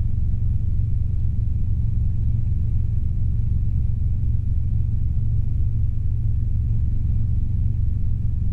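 Robinson R22 helicopter's engine and rotor noise in flight, heard from inside the cockpit: a steady low drone with a fast, even pulsing beat.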